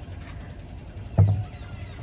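A single dull thump a little over a second in, over a steady low rumble, followed by a few faint short falling chirps.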